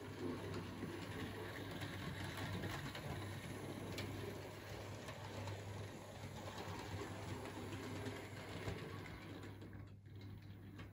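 Hornby OO gauge Flying Scotsman model locomotive running on the track: the steady whirr of its small electric motor and gears with wheels rattling over the rail joints, falling away about ten seconds in as it slows.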